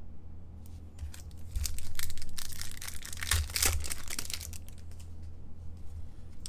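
Foil wrapper of a hockey card pack crinkling and tearing as it is ripped open by hand, loudest from about two to four seconds in.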